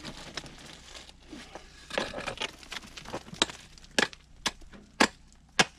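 Hand tools chipping at quartz-bearing rock and clay: scraping and crumbling dirt, then four sharp strikes about half a second apart in the last two seconds.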